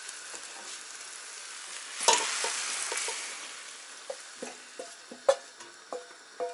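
Fried pork sizzling as it is tipped and scraped from a hot frying pan into a steel pot. The sizzle surges loudly about two seconds in, then gives way to a series of sharp metal clinks and scrapes of the pan against the pot.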